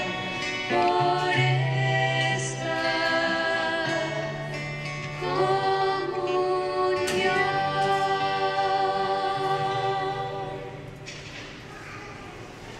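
Liturgical song: a singer with keyboard accompaniment, long-held notes over sustained bass notes. The music dies away about ten seconds in, leaving the church's reverberation.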